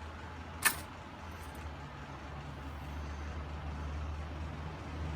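A steady low mechanical hum, with one sharp click under a second in.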